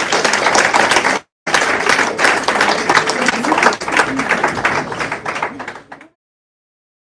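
Audience applauding, many hands clapping in a dense patter. It cuts out briefly after about a second, resumes, and fades away about six seconds in.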